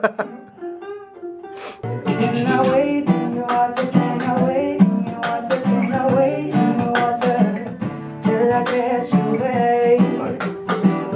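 Acoustic guitar and ukulele strumming together, with a man singing along. The playing starts as a few softer plucked notes, then becomes fuller, steady strumming about two seconds in.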